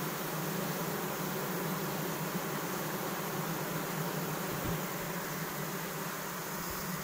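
Queenless honeybee colony humming: a steady, unbroken low drone, like a factory at work, the hum by which a beekeeper recognises a colony that has lost its queen.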